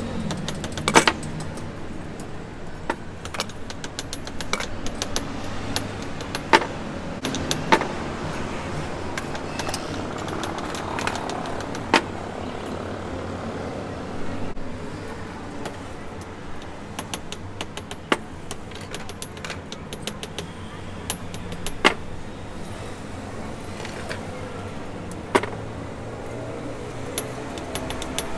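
Sharp metal taps and clinks from hand tools, struck at irregular intervals a few seconds apart over a steady low hum.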